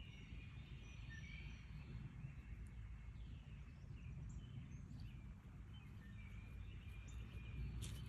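Faint outdoor ambience: songbirds chirping and calling in the background over a low, steady rumble.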